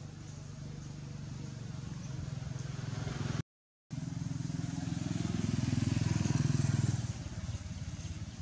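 A vehicle engine running nearby with a low, pulsing hum. It swells louder about five to seven seconds in, then eases off, like a vehicle passing. The sound cuts out completely for about half a second near the middle.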